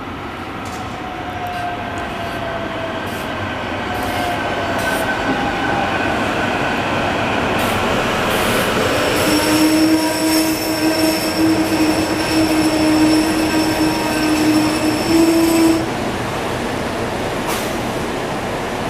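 SEPTA Silverliner V electric commuter train pulling into the station, its running noise growing louder as it approaches and passes. From about halfway a steady tone sounds over the train noise and cuts off abruptly a few seconds before the end.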